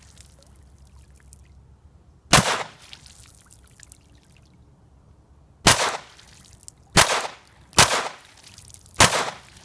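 Five single shots from an ATI GSG 1911 .22 LR pistol firing CCI Mini Mags outdoors: the first about two seconds in, then after a pause four more about a second apart.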